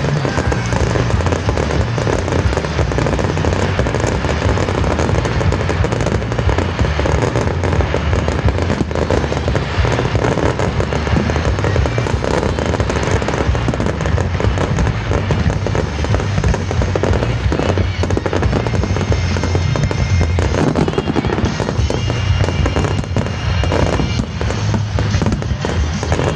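Fireworks display set to music: a steady, dense run of popping and crackling from aerial shells and ground fountains firing together, with the show's music playing underneath.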